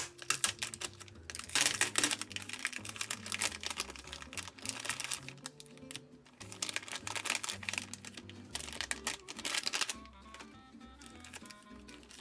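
Background music with two long runs of rapid clicking and rustling, like packaging being handled and opened.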